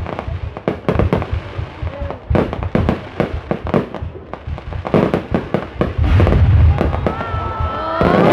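Fireworks going off in a quick, irregular string of sharp bangs and crackles, with a heavier rumbling barrage about six seconds in.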